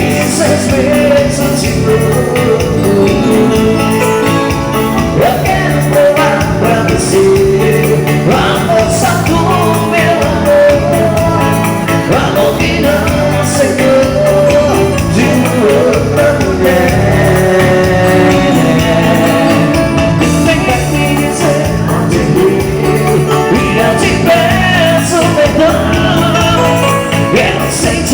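Live band playing a romantic dance song: a melody line over a steady bass line that steps from note to note.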